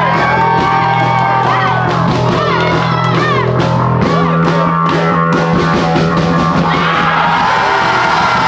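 Indie rock band music: sustained bass notes and gliding guitar or vocal lines over drums, with the bass note changing about halfway through.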